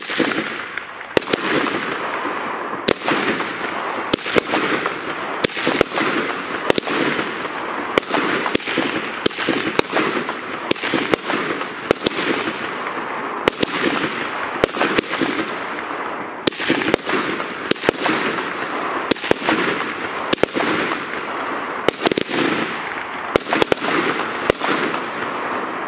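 A 20-shot, 30 mm consumer firework cake (Weco 'Magnolia') firing its full sequence: a rapid series of sharp launch thumps and star bursts, about one to two a second, over a continuous hiss, ending near the end.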